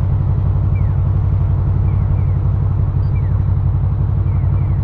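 Motorcycle engine running steadily while riding, a continuous low rumble.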